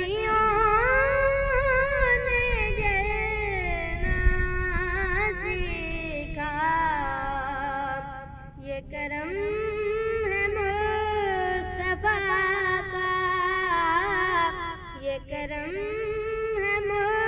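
A girl's solo voice singing a naat into a microphone, holding long, ornamented notes that waver in pitch. She pauses briefly twice, about halfway through and near the end.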